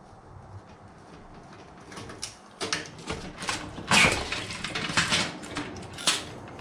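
Computer parts being pulled apart: knocks and rattles of metal and plastic starting about two seconds in, the loudest knock near the middle.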